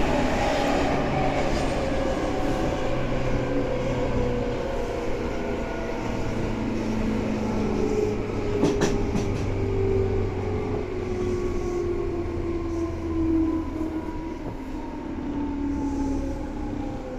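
Tobu 9000-series electric train heard from inside the car as it slows: the whine of its traction motors and chopper control falls steadily in pitch over a steady rumble of wheels on rail. A couple of sharp clicks come about halfway through.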